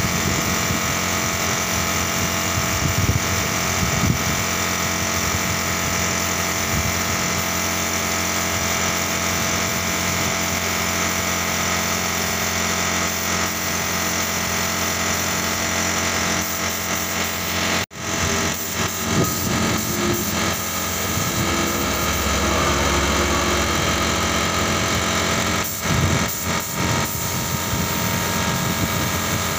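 Compressed-air paint spraying: a gravity-feed spray gun hissing steadily over the running hum of an air compressor. The sound cuts out briefly about 18 seconds in.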